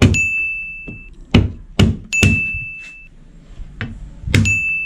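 Cleaver smashing garlic cloves on a plastic cutting board: about six sharp thuds, three of them followed by a high ringing note lasting about a second.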